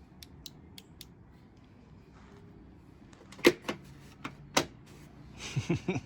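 A few light clicks, then three sharp clicks or knocks a little over a second apart in the middle, followed by a short rustle near the end.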